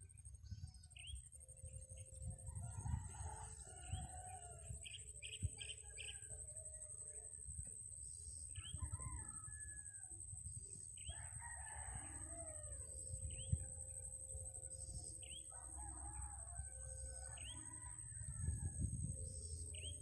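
Roosters crowing in the distance several times over a steady, high-pitched insect drone, with a bird repeating short rising chirps every couple of seconds. A low, uneven rumble runs underneath and swells near the end.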